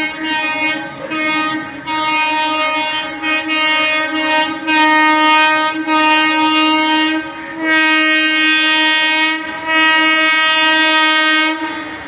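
Locomotive air horn of an approaching Indian Railways express train, sounded in a long series of blasts on one steady note with short breaks between them. It is a warning for people near the track to keep clear.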